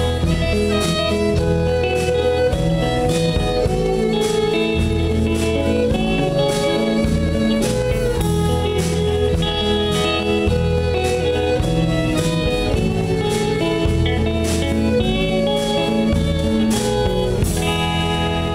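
Live band playing with a steady drumbeat: fiddle, hollow-body electric guitar, plucked upright bass and drum kit.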